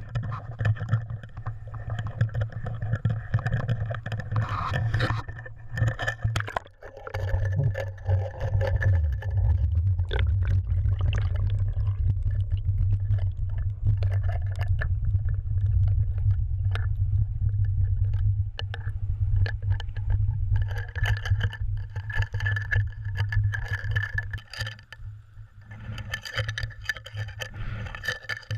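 Muffled low rumble with scraping knocks, picked up by a GoPro sealed in its waterproof housing on a cod jigger as it goes over the side and is jigged underwater. About seven seconds in the sound dips briefly, then settles into a heavier, steady rumble.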